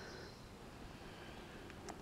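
Faint background hiss with a short click near the end.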